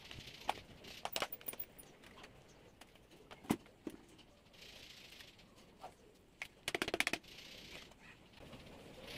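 Plastic handling noises from a cordless handheld vacuum's pleated filter and dust cup being taken apart and cleaned: scattered sharp clicks and knocks, a brief scratchy hiss about five seconds in, and a quick run of clicks near seven seconds.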